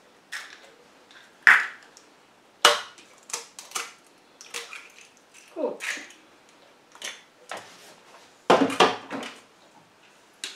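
Eggs being cracked on the rim of a stainless-steel mixing bowl and emptied into it: a series of separate sharp knocks and taps. Near the end comes a louder clatter of knocks as the metal bowl is set back onto the food processor's base.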